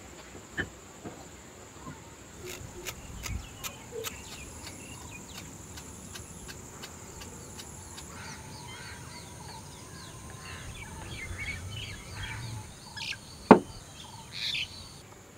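Birds chirping in the background, with a steady high-pitched tone underneath. There are a few light clicks about three seconds in and one sharp knock near the end.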